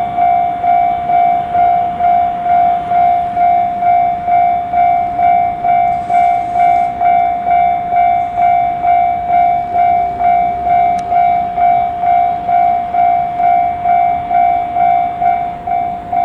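Japanese railway level-crossing alarm ringing, an even, repeated ding at about two strokes a second on one steady pitch, warning that a train is approaching.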